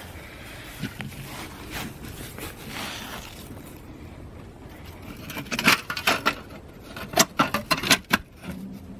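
A quick run of sharp scrapes and knocks in the second half as a hand reaches into the fire box opening of a cob wall, working against the dried mud and straw inside.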